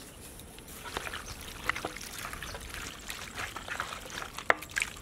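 Hands mixing raw mutton pieces in a yogurt, oil and onion marinade: irregular wet squelches and sticky clicks, with one sharper click near the end.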